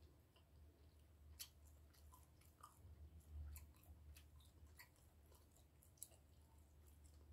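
Faint chewing of a mouthful of breakfast food, with scattered soft clicks and smacks of the mouth, over a low steady hum.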